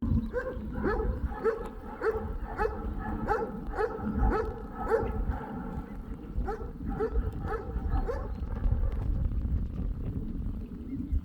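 Short high-pitched animal calls repeated about twice a second, each with a slight upward sweep, thinning out after about eight seconds, over a low rumble.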